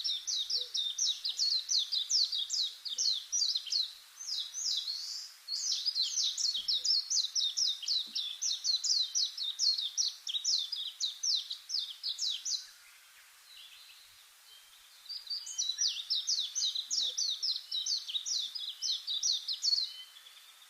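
A bird singing long runs of rapid, repeated high chirps, about five a second, pausing for a couple of seconds past the middle before starting again.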